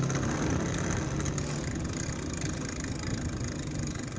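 Street traffic: a motor vehicle's engine hum that fades within the first second, then a steady rumble of traffic and road noise.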